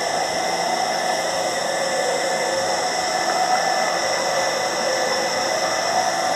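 A steady whir and hiss from a running motor-driven blower, with a constant hum and no change in level or pitch.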